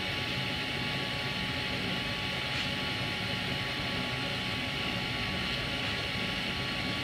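Rig-mounted spray gun spraying resin onto a fiberglass tank, a steady hissing rush with a faint steady whine.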